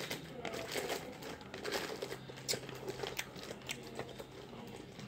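Plastic candy wrappers crinkling and rustling in scattered, irregular crackles as wrapped candies are handled and picked through.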